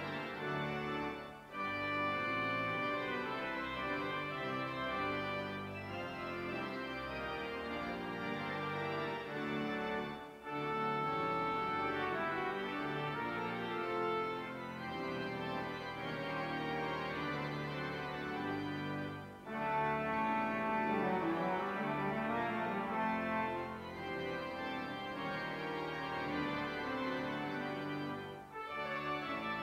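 Church organ playing a closing voluntary after the dismissal: held chords moving slowly, with short breaks between phrases about every nine seconds.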